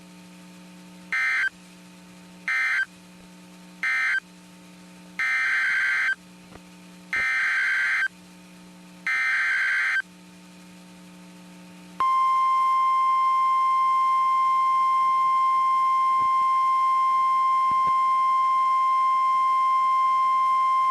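Emergency Alert System SAME data bursts from a NOAA Weather Radio broadcast: three short end-of-message bursts closing one severe thunderstorm warning, then three longer header bursts announcing the next. About twelve seconds in, the steady single-pitched 1050 Hz weather-radio attention tone starts and holds for about nine seconds. A low hum sits in the gaps between bursts.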